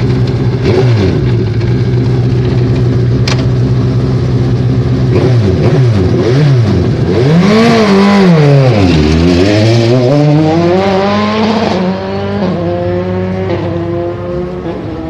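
Single-seater open-wheel race car engine idling, then blipped: several quick rises and falls in revs from about five seconds in, one big swoop, and a longer climb. The revs drop back about twelve seconds in, and it runs on more quietly.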